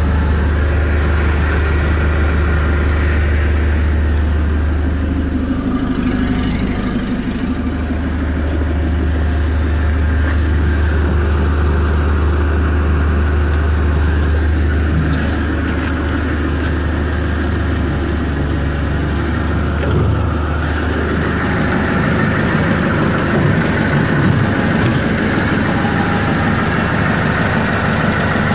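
Clark forklift's engine idling steadily, a deep even hum. In the last third the low hum thins and the running sounds rougher and more mechanical.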